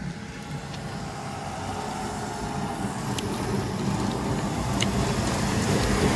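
Pickup truck approaching on a rain-wet road. Its engine hum and the hiss of its tyres on the wet tarmac grow steadily louder as it nears.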